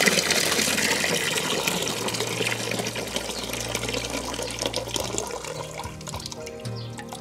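Water running from an outdoor wall tap and splashing down, loudest at first and slowly dying away as the flow thins to a trickle near the end.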